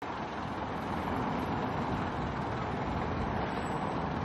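Steady street traffic noise from cars and a truck, an even rumble and hiss with no single event standing out.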